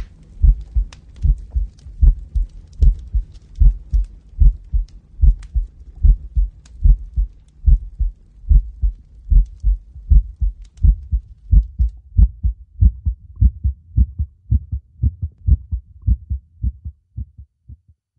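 Heartbeat sound effect: a steady run of low double thumps, growing fainter near the end until it stops.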